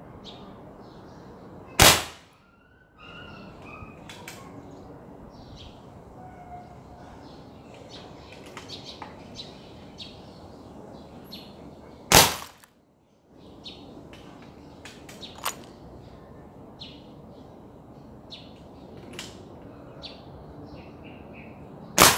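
Three shots from a .22 caliber foot-pump air rifle, about ten seconds apart, each a sharp crack as a pointed pellet hits a wall clock and breaks its glass face. Birds chirp faintly between the shots.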